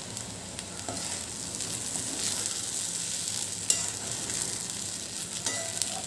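Sabudana khichdi sizzling steadily in a coated pan over the gas while a spatula stirs and scrapes through the sago pearls and potato, with now and then a sharper scrape of the spatula on the pan.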